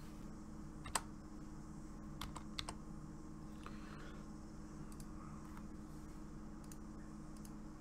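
A few scattered computer keyboard and mouse clicks, the sharpest about a second in and a small cluster a little after two seconds, over a steady low hum.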